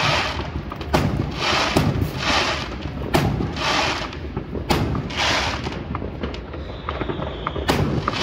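Aerial fireworks going off, about one sharp bang a second, each burst followed by a short crackling hiss as the stars break up. A faint whistle sounds about seven seconds in.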